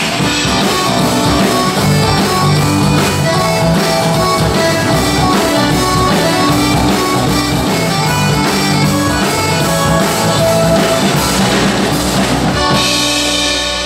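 Live folk-rock band playing: guitars, accordion and drum kit with a steady beat. Near the end the beat drops back and held chords ring.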